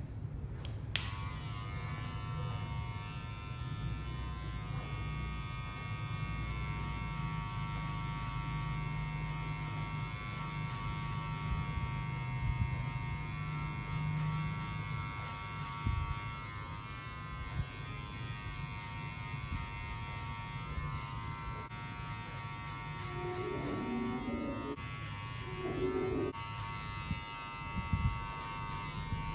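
Electric hair clipper switched on about a second in with a click, then running with a steady buzz.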